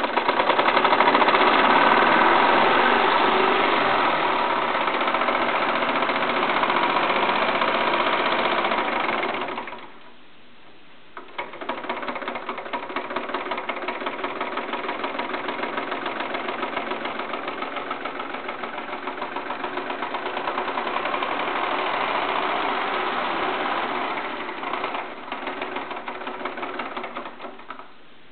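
Wilesco D32 live-steam model engine running, a rapid, even beat of its exhaust and mechanism. It stops about ten seconds in and starts again a second and a half later, running on until near the end.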